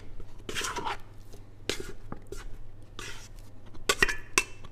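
A plastic dough card scraping the inside of a stainless steel mixing bowl in a series of short scrapes, working sticky dough loose so it slides out. A couple of light metallic clinks from the steel bowl come near the end.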